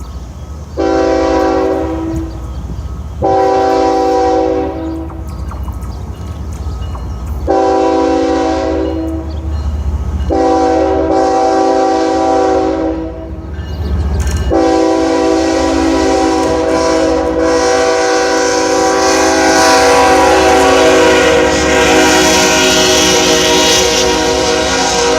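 Ferrosur locomotive's air horn sounding a chord of several notes in five blasts: two short, two longer, then one long held blast that runs on, over the low rumble of the passing train.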